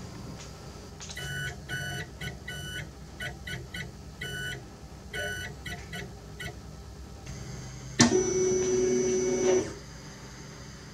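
3D printer's stepper motors whining in short, irregular bursts of pitched tones as the print head moves, then one longer, steadier whine of about a second and a half that starts abruptly near the end.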